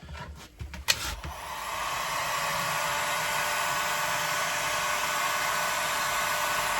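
Electric heat gun switched on with a click about a second in, its fan spinning up and then blowing steadily, heating the exhaust fitting to free it.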